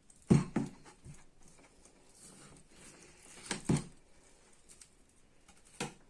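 A few scattered knocks and thumps of kitchen work: two close together in the first second, another pair around three and a half seconds in, and a single knock near the end.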